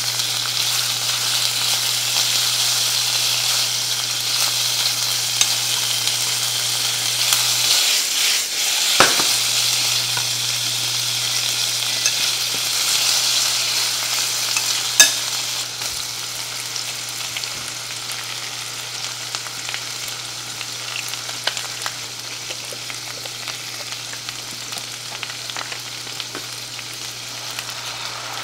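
Sliced pork sizzling as it fries in a nonstick frying pan, stirred and turned with wooden chopsticks, with a couple of sharp clicks against the pan. The sizzle eases in the second half, over a steady low hum that drops out briefly about eight seconds in.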